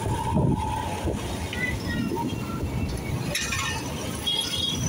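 Street traffic heard from a moving vehicle: a steady engine and road rumble, with short faint high tones near the end.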